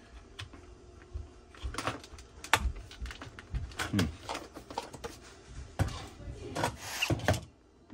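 Hard plastic housing of a Magic Mixies cauldron toy being pried apart by hand: irregular clicks, snaps and knocks of plastic parts.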